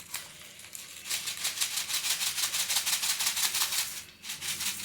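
Whole cumin seeds and a dried red chilli sizzling and spluttering in hot mustard oil in a kadai, a fast, dense crackle that briefly eases a little after four seconds.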